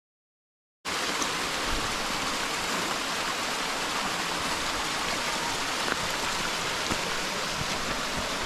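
Mountain stream flowing over rocks in a steady rush of water, starting abruptly just under a second in after a brief silence.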